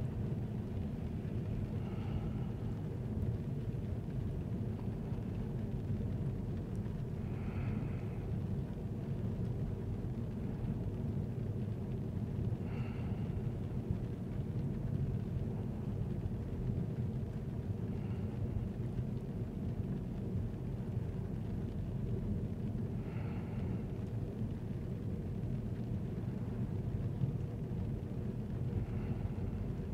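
Steady low road and engine rumble of a moving vehicle heard from inside the cabin, with a faint short higher-pitched sound about every five seconds.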